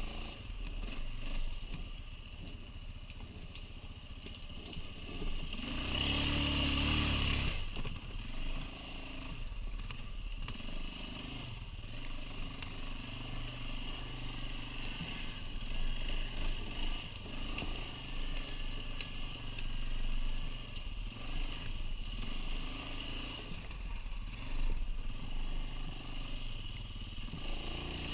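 Quad bike (ATV) engine running off-road, its pitch rising and falling with the throttle, with a louder rev about six seconds in.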